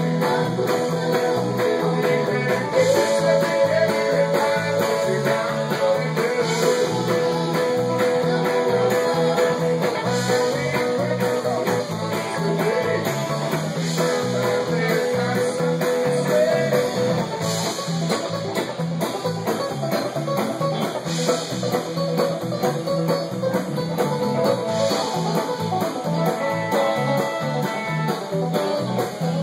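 Live band playing with electric guitars, bass guitar and a drum kit keeping a steady beat, and a banjo picking along.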